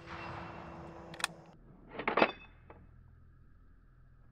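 Bolt of a Mosin Nagant M44 rifle being worked by hand: a single click, then a quick cluster of sharp metallic clacks about two seconds in and one last click.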